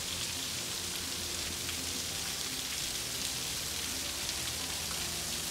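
Waterfall water falling and splashing, a steady even rushing hiss.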